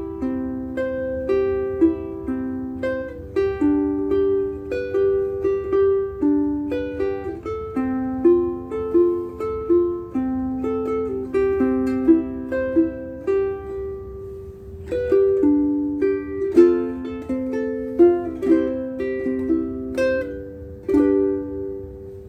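Acoustic ukulele strung with Aquila strings, played solo: a melody picked in single plucked notes, the phrase starting over about 15 seconds in.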